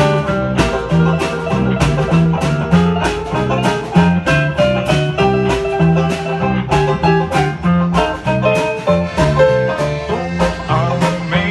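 Live band playing an instrumental break in a country/bluegrass-style song: plucked strings over a steady bass beat of about two strokes a second, with no singing.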